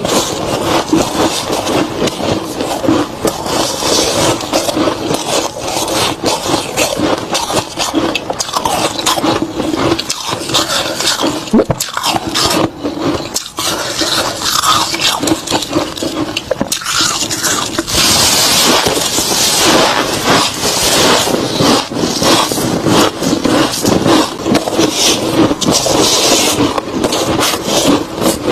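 Close-miked crunching and chewing of soft, crispy freezer frost, a dense run of small crackles and scrapes without pause, over a faint steady low hum.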